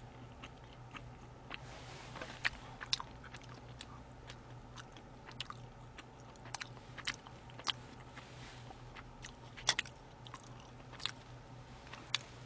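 Sushi being chewed close to a condenser microphone: scattered soft mouth clicks and smacks, a few sharper ones near the end, over a faint steady low hum.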